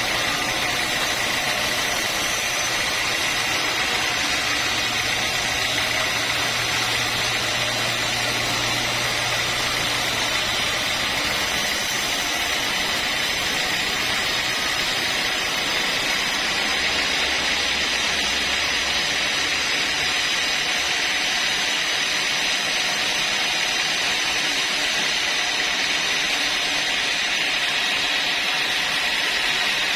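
Sawmill saw machinery running steadily, a continuous mechanical noise with a high steady whine. A low hum beneath it shifts and drops out partway through.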